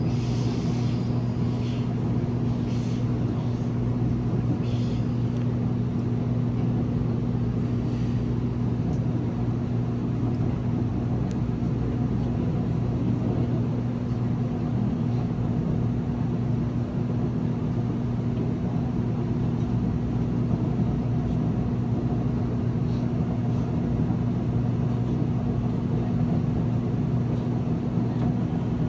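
Seoul Subway Line 1 express train running at speed, heard from on board: a steady rumble of wheels on rail under a constant low hum, with a few faint ticks in the first few seconds.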